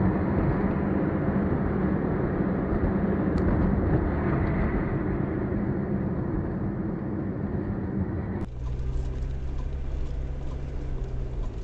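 Steady engine and tyre road noise heard from inside a moving car on a snowy road. About eight and a half seconds in it switches abruptly to a different car's lower, steadier engine hum.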